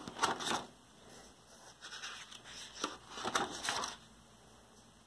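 Paper pages of a spiral-bound sketchbook being turned: a soft rustle as the sheet flips over at the start, then a few more rustles and brushes of paper between about two and four seconds in.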